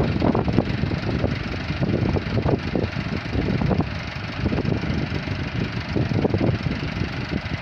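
Massey Ferguson 385 tractor's diesel engine idling with a steady, uneven low rumble.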